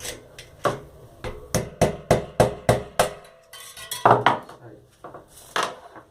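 Bicycle freewheel being taken apart: about a dozen sharp, irregular metal-on-metal taps and clinks, as a tool strikes and works the loosened, reverse-threaded cone. There is a short metallic ring in the middle and one louder knock near the end.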